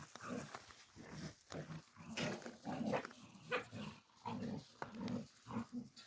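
An animal calling in a quick series of short, low calls, about a dozen over six seconds.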